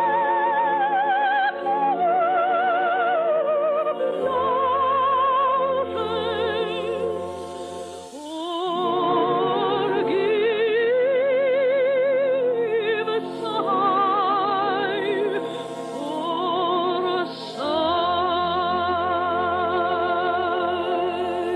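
A woman sings a slow song in a full operatic style over orchestral accompaniment. She holds long notes with a wide vibrato, with short breaths between phrases about every four to nine seconds. The sound is the narrow, muffled sound of an old radio broadcast recording.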